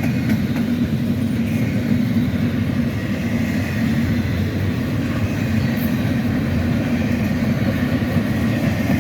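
Freight train rolling past, a steady rumble of its cars on the rails.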